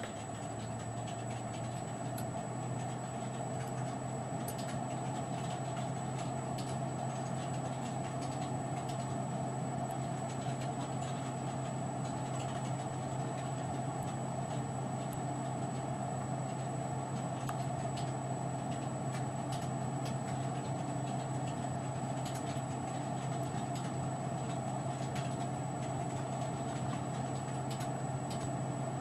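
Steady low background hum, with faint taps of a plastic stylus on a PDA touchscreen now and then.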